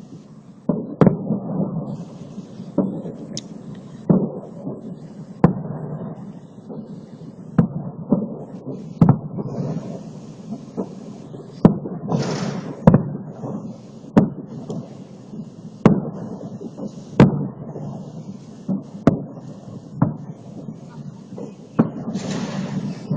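Festive fireworks salute: booming shell bursts at irregular intervals of about a second, each trailing off in a rumble, recorded on a phone's microphone.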